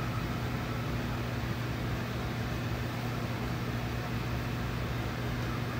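Room air conditioner running: a steady low hum under an even fan rush, unchanging throughout.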